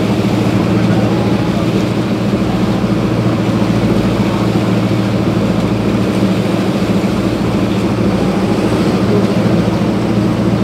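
Outrigger boat's engine running steadily while the boat cruises, a loud, even drone.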